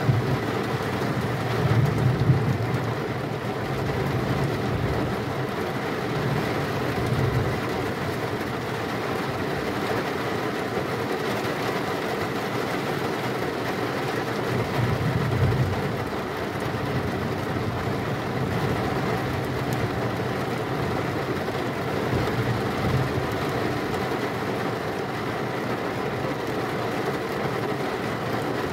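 Steady heavy rain, with low rumbles of thunder swelling about two seconds in and again around fifteen seconds.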